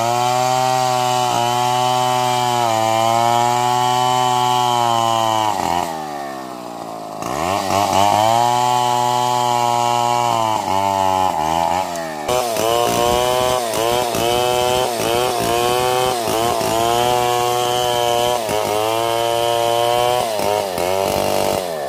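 Large Stihl two-stroke chainsaw cutting through a felled log at high revs under load. About six seconds in the engine drops to lower revs, then picks up again. In the second half the pitch rises and falls over and over as the chain bites into the wood.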